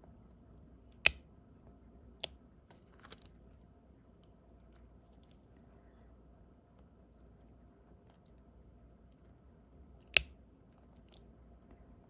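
Diamond painting: the drill pen clicking as it picks up and presses resin drills, with two sharp clicks about a second in and near the end, a softer click and a brief rustle between them.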